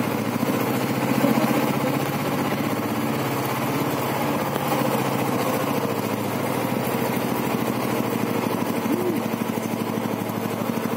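Royal Enfield Bullet motorcycle's single-cylinder engine running steadily, turning a generator off its rear wheel.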